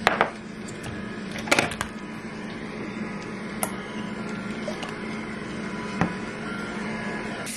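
Frothed milk poured from an electric milk frother jug into a glass of coffee, with a few light clicks and knocks of the jug and glass being handled, over a steady low hum.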